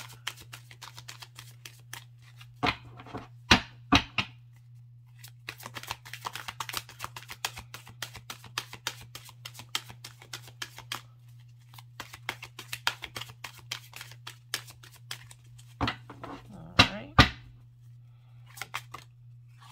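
Tarot cards being shuffled by hand: long runs of quick flicking clicks, with a few louder sharp knocks about three seconds in and again near the end. A steady low hum runs underneath.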